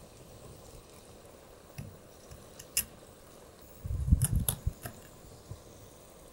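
Knife filleting a horse mackerel on a cutting board, the blade following the backbone: faint slicing and scraping, with a few sharp clicks and a cluster of soft bumps about four seconds in.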